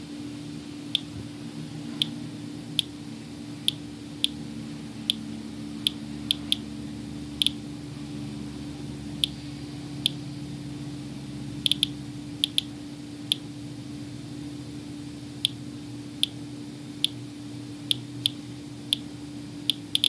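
Inspector Alert Geiger counter clicking at random intervals, about one or two clicks a second and sometimes two close together, each click one detected radiation count, at a rate of about 50 to 65 counts per minute. A steady low hum lies underneath.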